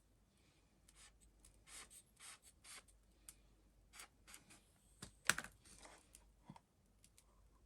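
Faint hand work at a bench: a run of short scrapes and light clicks, with one sharper click-scrape a little past five seconds in.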